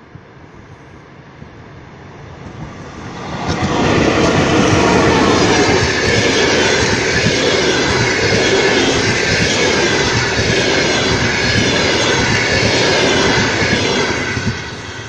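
A passenger train hauled by a ChS7 electric locomotive passes close at speed. The rolling wheel-on-rail noise builds as it approaches and becomes loud and steady about three and a half seconds in. It drops off near the end as the last coaches go by.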